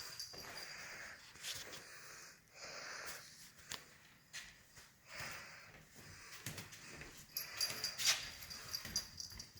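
A pet cat breathing and sniffing close to the microphone in short noisy puffs, with a few sharp clicks. The loudest click comes near the end.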